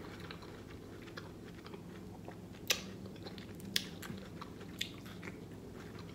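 Close-up chewing of a piece of red bell pepper from a stuffed pepper: soft, wet mouth sounds broken by sharp clicks, the loudest a little under three seconds in, then two more about a second apart.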